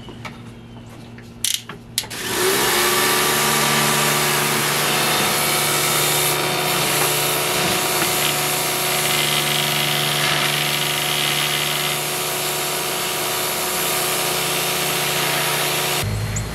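Pressure washer starting up about two seconds in, its motor and pump whining as it spins up, then running steadily with the water jet hissing against wood. It stops abruptly near the end.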